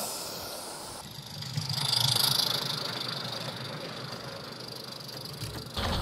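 Live steam garden-railway locomotive and coaches passing, a steady steam hiss over a low rumble of wheels on the track, loudest about two seconds in.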